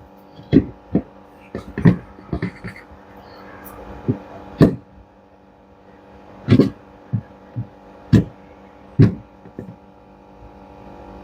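Irregular sharp knocks and taps of tools and parts being handled while a new gearbox assembly is fitted into a twin-tub washing machine, over a steady hum.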